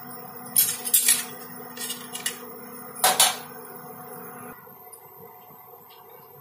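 A few sharp crackles and pops from hot mustard oil with spices in a nonstick frying pan, most of them in the first half. Under them runs a steady electrical hum from the induction cooktop, which cuts off suddenly about four and a half seconds in.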